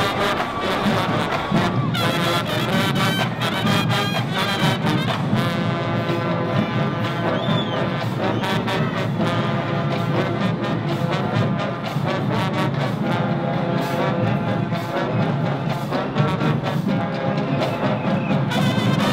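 Brass band playing: trombone, sousaphones and saxophone over steady drum hits from snare and bass drums.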